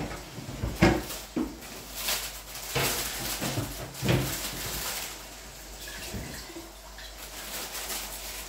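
Kitchen work sounds: several knocks and clatters over the first five seconds, with a stretch of splashing water through the middle, then quieter.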